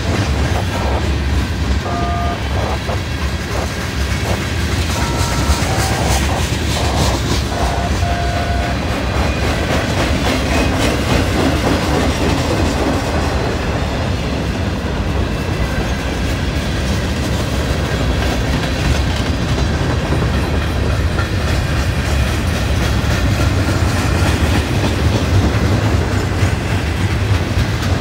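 Mixed freight cars (tank cars, flatcars, autoracks) rolling past close by: a steady heavy rumble with wheels clacking over the rail joints. A few brief squeals come in the first several seconds.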